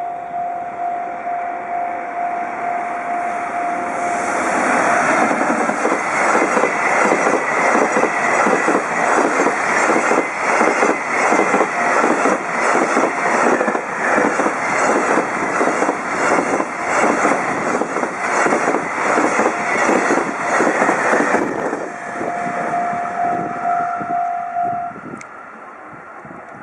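A level-crossing warning bell rings with a steady, pulsing tone. A container freight train hauled by a JR Freight EF210 electric locomotive then passes at speed for about 17 seconds, its wheels clattering rhythmically over the rail joints. After the train clears, the crossing bell sounds alone again for a few seconds and stops.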